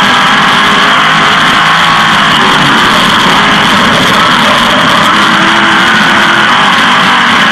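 A 360 sprint car's V8 engine running hard at high revs, loud and unbroken, its pitch wavering slightly up and down.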